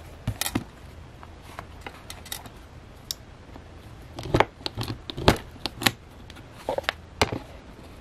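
Hands handling a fabric-covered chipboard journal cover and its paper pages: scattered taps, knocks and rustles. They come in a few clusters, half a second in, again between about four and six seconds, and near seven seconds.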